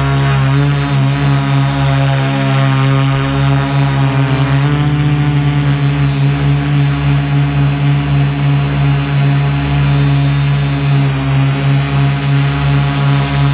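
Multirotor drone's propellers and motors humming loudly and steadily, heard on the drone's own microphone, with a steady high whine above the hum. About four and a half seconds in the pitch shifts and the hum pulses for a few seconds.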